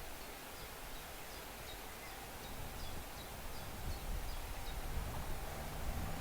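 A small bird chirping, repeated short high notes that stop about two-thirds of the way through, over a low, uneven outdoor rumble. Near the end a broader rumble starts to build.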